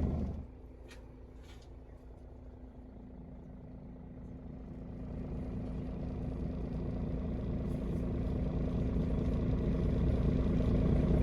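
Jet airliner engine noise, quiet at first and then growing steadily louder over several seconds as the aircraft approaches.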